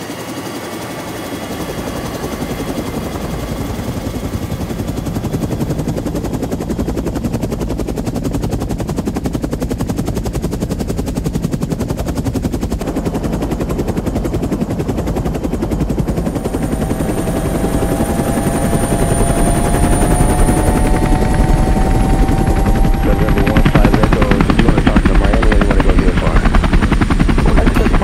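A motor with a rapid chopping beat, growing steadily louder as it approaches, with a gliding whine part way through.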